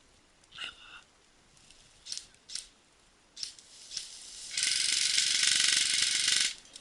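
Airsoft electric gun firing a full-auto burst of about two seconds in the second half, a fast mechanical rattle, after a few short separate sounds.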